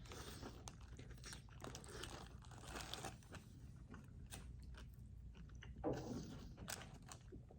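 A person biting into a crispy fried chicken sandwich and chewing it: faint, irregular crunching.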